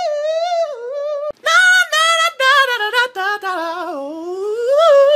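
A man singing unaccompanied in a high voice with vibrato. About a second in, the song breaks off and a different one begins, sung the same way.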